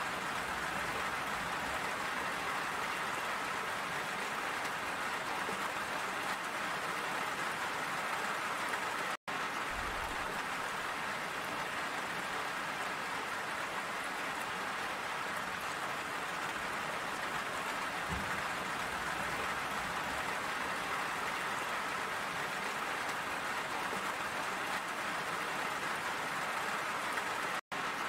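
Steady, even rainfall, a dense hiss of drops with no single drop standing out. The sound cuts out for an instant twice, about nine seconds in and again just before the end.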